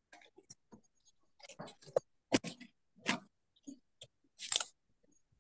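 Irregular light clicks and taps of small objects handled on a desk, with a few sharper knocks about two seconds in and a short rustle near the end.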